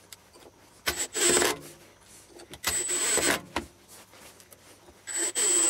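Cordless screwdriver running in three short bursts with a high whine, driving wood screws through a steel lathe faceplate into a wooden blank.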